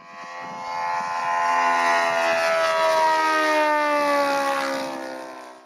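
Saito FG-90R3 three-cylinder four-stroke radial engine on a radio-controlled La-7 scale model flying past. Its steady engine note slides gradually down in pitch as it passes, growing louder and then fading away.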